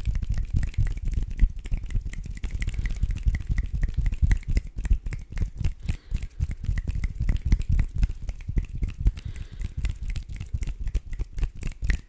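ASMR hand sounds made right at the microphone: hands moving and rubbing in a fast, irregular run of soft clicks and rustles.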